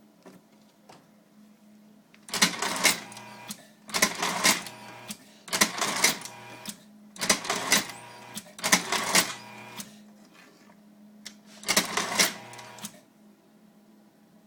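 Plas-Ties XL-2 side-mount twist-tie machine running through six tying cycles. Each cycle is a short mechanical whir-and-clack of under a second, coming about every second and a half, with a longer pause before the last. A steady low hum runs underneath.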